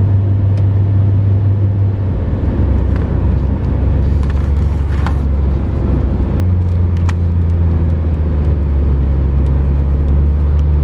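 Car driving, its low road and engine drone heard from inside the cabin, with a few faint clicks. The drone shifts in pitch about two seconds in and again about six seconds in.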